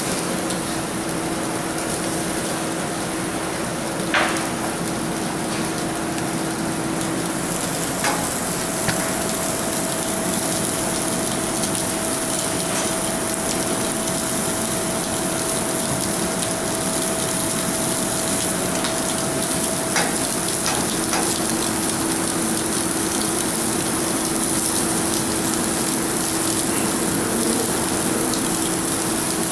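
Food sizzling on a hot, oiled grill: a steady hiss throughout, with a few sharp clicks and a faint steady hum underneath.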